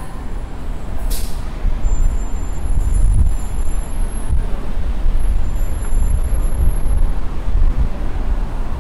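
Street traffic: a steady low engine rumble of passing motor vehicles, with a short hiss about a second in.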